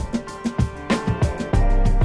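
Background music with a steady drum beat and deep bass; the bass drops out about a second in and comes back near the end.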